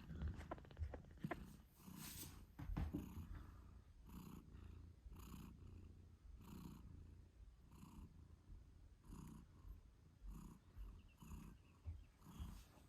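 British shorthair mother cat purring faintly in even cycles, about one a second. A few soft clicks come in the first three seconds.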